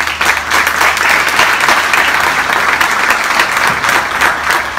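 An audience applauding: dense, steady clapping that thins out near the end.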